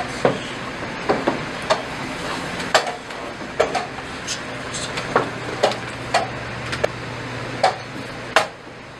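Wooden chess pieces being set down on a wooden board and a chess clock being pressed during fast play: about fifteen sharp clicks and taps at uneven intervals, over a faint steady hum.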